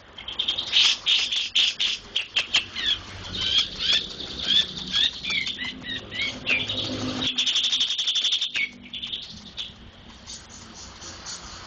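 Small songbird chirping rapidly in short, high, sliding notes, mixed with quick wing flutters, with a fast buzzy trill about seven seconds in.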